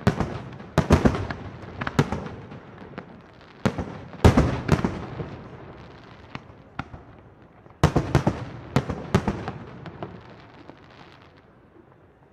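Aerial fireworks shells from a professional display bursting overhead: loud sharp bangs in three clusters, one at the start, one about four seconds in and one about eight seconds in, each followed by a fading tail. The bangs die away near the end.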